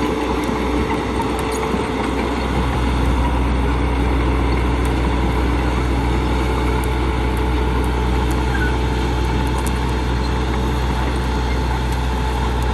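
Heavy vehicle engine running steadily at constant speed, a low even drone with no revving.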